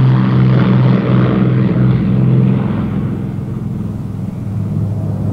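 Lockheed P-38 Lightning's twin Allison V-12 engines running at high power as the fighter takes off and climbs away, a steady drone that eases a little toward the end.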